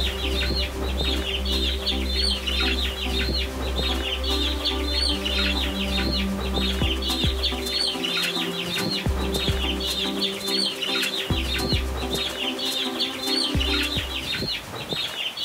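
A flock of young chickens peeping: many short, high, falling chirps overlapping several times a second. Background music plays underneath.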